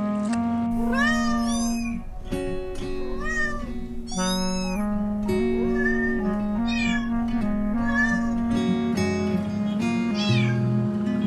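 Cat meowing repeatedly, about eight separate meows, each rising then falling in pitch, over gentle background music of sustained notes.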